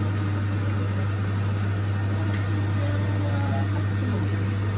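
Kitchen extractor hood fan running with a steady low hum.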